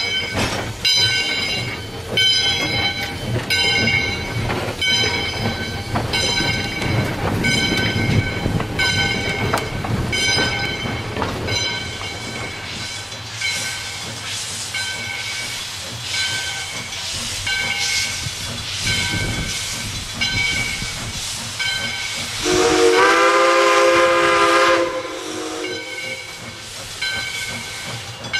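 Steam locomotive No. 40 pulling out with steam hissing from its open cylinder cocks while a bell rings steadily. About 22 seconds in it blows one long chord on its steam whistle, held about two and a half seconds.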